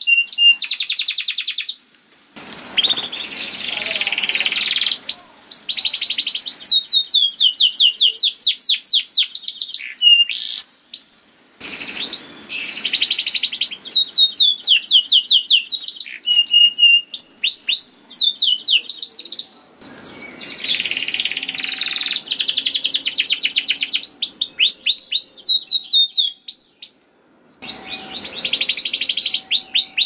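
Domestic canary singing a long, rapid song of fast repeated rising chirps and trills, mixed with rougher rattling rolls. The song comes in long phrases broken by brief pauses.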